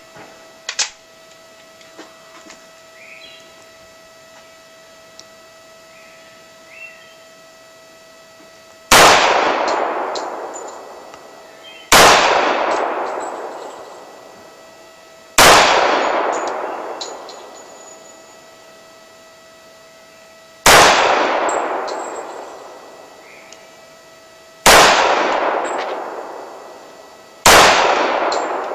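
Six pistol shots from a Dan Wesson Valor 1911, fired slowly a few seconds apart. Each shot is followed by a long, fading echo.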